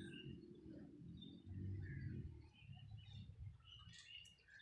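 Faint birds chirping in short scattered calls over a low, steady rumble.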